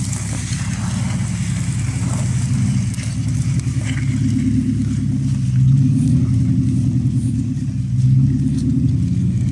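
Jeep Grand Cherokee WJ's engine running under load as the 4x4 drives slowly over soft, muddy ground, the revs swelling about halfway through and again near the end.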